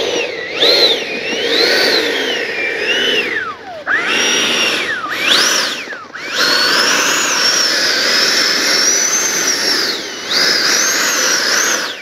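E-flite 80mm electric ducted fan jet taxiing on its fan: a high whine that rises and falls with the throttle. It dips low twice midway, then winds down at the end.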